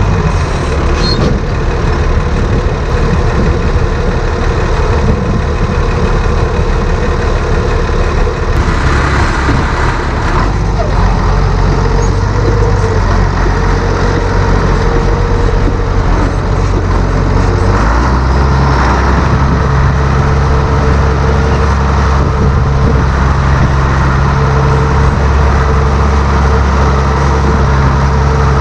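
White tractor's engine running steadily, its pitch shifting about eight seconds in and again about eighteen seconds in as the engine speed changes.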